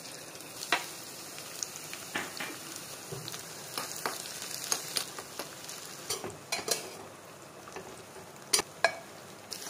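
Sliced ginger and green chillies sizzling in hot ghee for a tadka, with a steady hiss and a metal spoon clicking against the pan as it is stirred. Two sharper spoon knocks come near the end.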